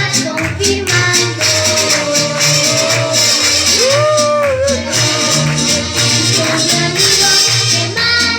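Music with a sung melody over a steady beat of bright, shaken or struck percussion, with held, bending notes in the voice about four seconds in.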